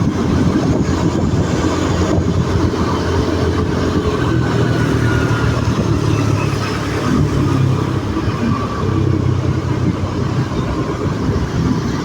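Steady rumble of traffic on a rainy city street, with the hiss of rain and wet roads.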